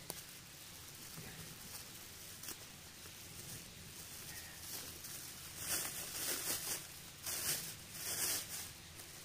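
Plastic bag crinkling as it is handled and opened, in several short bursts in the second half.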